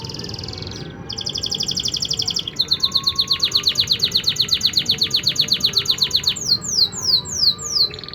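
Domestic canary singing a run of varied trills. A buzzy trill at the start, then a rolling trill about a second in, then a loud, very fast trill of about ten notes a second, and near the end a series of quick downward-sweeping whistles.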